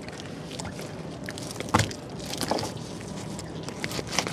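Small fishing boat while a gill net is pulled in: a steady low rumble with scattered knocks and taps, the loudest about two seconds in.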